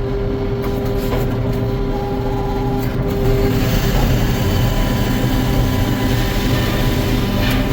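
Sawmill machinery running steadily, with a louder, hissier sound building up about three seconds in.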